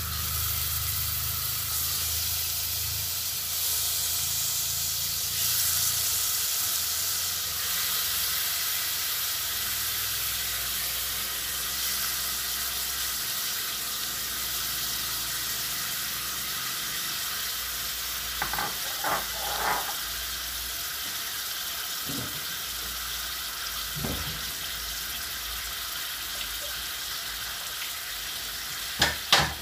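Marinated beef sizzling as it fries in melted butter and olive oil in a pot, a steady hiss. A few light knocks come about two-thirds of the way through, and two sharp clicks near the end.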